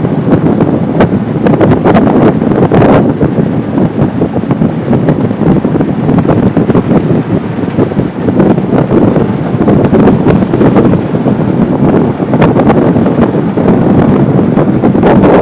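Wind buffeting the microphone on a moving boat: a loud, constant rush with crackling gusts near the start and again near the end.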